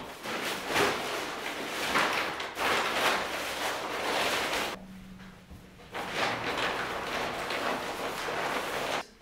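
Rustling of a Duotone Slick wing's fabric canopy as it is unrolled from its bag and spread out by hand, in uneven swells with a pause of about a second midway.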